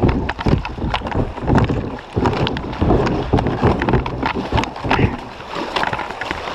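Kayak paddle splashing in quick, hard strokes with repeated knocks over rushing river water: a kayaker fighting the current to get clear of a sweeper.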